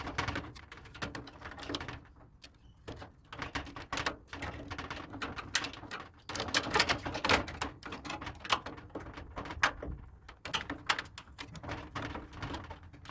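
Irregular clicks, knocks and rattles of plastic and sheet metal as a replacement plastic drum-support part is pushed and pulled into place in a General Electric clothes dryer's front panel.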